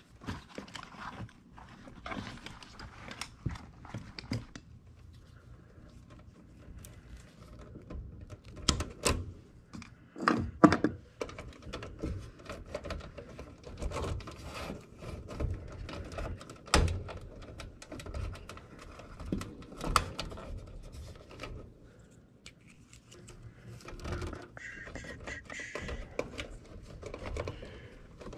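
Scattered clicks, taps and knocks of hand work inside a metal air handler cabinet: wire connectors pulled and tools handled around the blower assembly. The sharpest knocks come about ten seconds in and again near seventeen seconds.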